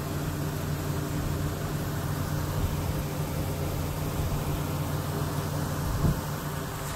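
Rainwater rushing steadily out of a French drain's pop-up emitter and spilling over the concrete, over a steady low hum. A brief low thump about six seconds in.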